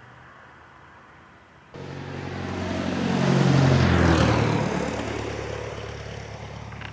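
An aircraft passing close by, cutting in abruptly about two seconds in, swelling to a peak, then fading as its engine pitch drops while it goes past.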